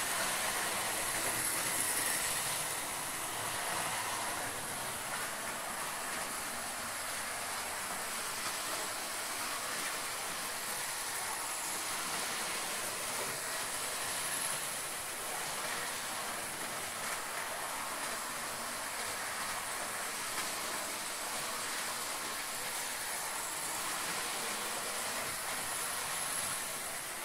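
Model railway trains running around a layout's track, one of them a high-speed train model with a yellow nose: a steady running noise from the motors and wheels.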